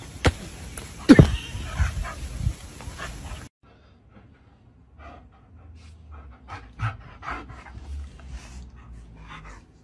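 Dogs play-fighting, with sharp knocks and a loud burst about a second in. After a sudden cut, a husky pants close by in short breaths, two to three a second.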